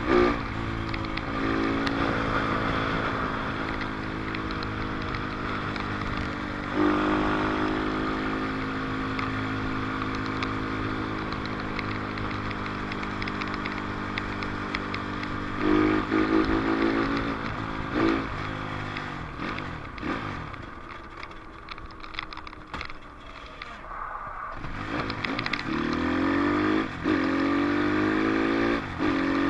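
Dirt bike engine running under way, its pitch rising and falling with throttle and gear changes. It eases off to a quieter, lower note about two-thirds of the way in, then revs back up near the end.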